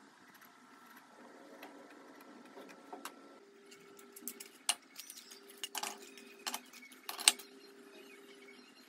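Small metal C-clamps being unscrewed and taken off glued teak pieces: scattered sharp metallic clicks and clacks of metal against wood and tile, loudest about seven seconds in, over a faint low hum.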